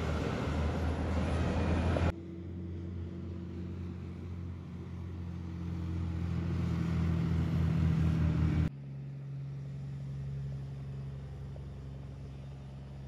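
Heavy diesel tipper trucks with trailers driving past one after another, their engines running with a steady low drone. The sound changes abruptly about two seconds in and again about nine seconds in as one passing truck gives way to the next; the middle one grows louder as it approaches.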